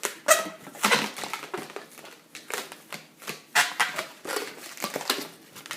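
Long latex modelling balloon being twisted and handled: irregular rubbery squeaks and sharp crinkling rubs as the balloon is bent and twisted into bubbles.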